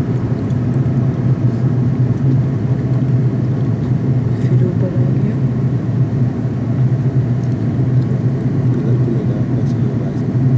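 Steady drone of an airliner in flight, heard inside the passenger cabin: engine and airflow noise with a strong low hum.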